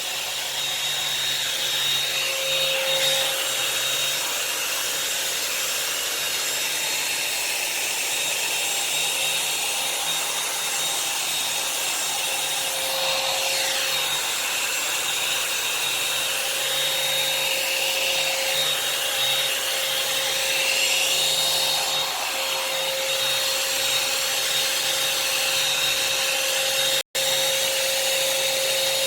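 Revlon hot-air dryer brush running steadily, its motor whining and blowing air while it is drawn through damp hair to straighten it. The sound cuts out for an instant near the end.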